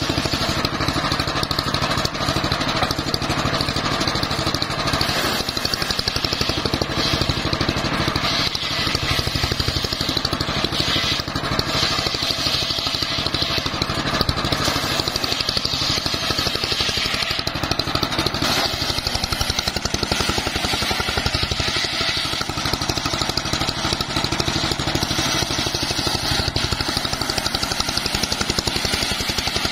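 Engine-driven homemade circular saw bench running steadily while its blade rips teak planks into rafters. A constant engine hum sits under the high hiss of the blade cutting wood.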